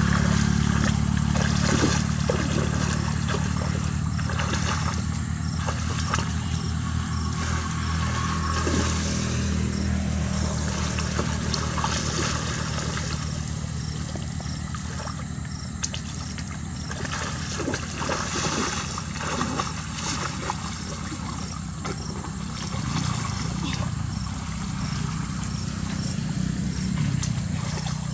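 Water sloshing and splashing as someone wades through a shallow muddy channel and scoops with a woven bamboo fishing basket. A steady low motor-like hum runs underneath throughout and is the loudest sound.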